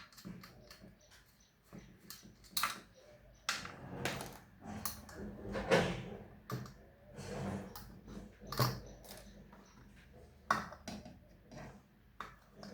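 Irregular metallic clicks, knocks and scraping of a spanner working on a ceiling fan's bolts and parts as the fan is taken apart.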